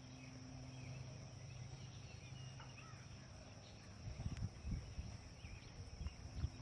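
Quiet pond-side ambience: a steady high insect drone with faint bird chirps. A low hum stops about three seconds in, and from about four seconds in there are irregular low rumbles and bumps.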